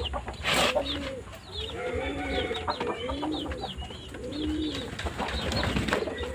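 Racing pigeons cooing, a low rising-and-falling coo about once a second, with higher chirps of other birds over it. A brief knock about half a second in.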